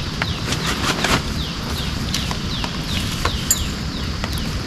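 Steady rain with scattered drops tapping on a tent, and a repeated short falling chirp from a small animal, about three a second.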